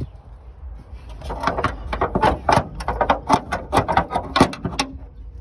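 A run of sharp, irregular clicks and knocks, several a second, starting about a second in and stopping just before the end: hard objects handled at the car's hood.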